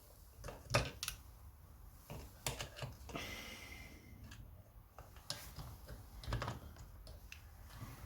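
Faint, scattered clicks and light knocks of small chainsaw parts and hand tools being handled during reassembly, with a brief scraping sound about three seconds in.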